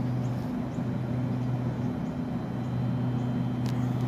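Double-deck electric train standing at the platform with its doors open, its onboard equipment giving a steady low hum with a faint high whine above it. A single short click sounds near the end.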